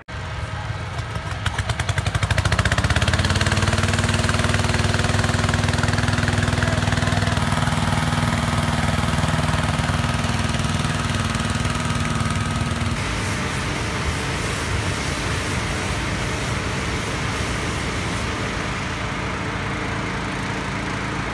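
Gasoline-engine balloon inflator fan blowing cold air into a hot-air balloon envelope. It speeds up over the first few seconds, then runs steadily. The sound changes abruptly about 13 seconds in, and a steady engine noise carries on.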